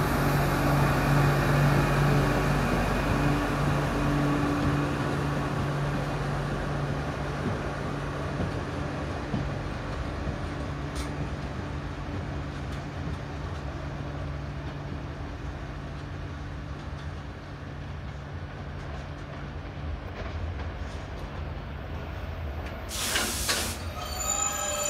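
Freight train of loaded open wagons hauled by a red locomotive rolling past slowly, a steady low hum from the locomotive over the rumble of wheels on the rails, fading as it pulls away. Near the end comes a short sharp hiss of air.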